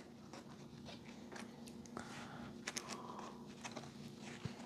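Faint scattered clicks and light rustling of a circuit board being handled, over a low steady hum.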